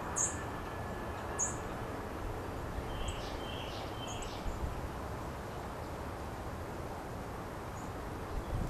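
Small birds chirping in the open over a steady background hiss: a few short, very high chirps in the first second and a half, then a handful of lower chirps around the middle.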